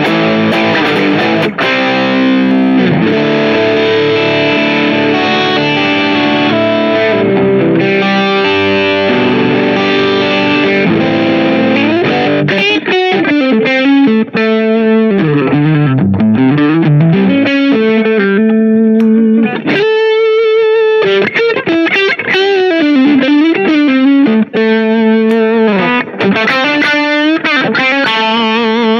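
AIERSI LP19 single-cut electric guitar with two humbuckers played with distortion. Chords for roughly the first twelve seconds, then a lead line of single notes with string bends and vibrato.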